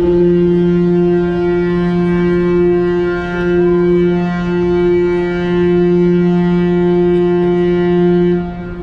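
Ferry's ship horn sounding one long, steady blast of about eight seconds, a deep low note with a bright edge, as the ship pulls away from its berth, the customary departure signal.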